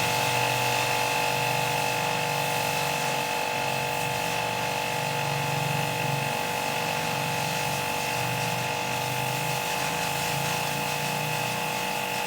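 An electric motor running steadily, with a constant whine over a wavering low hum.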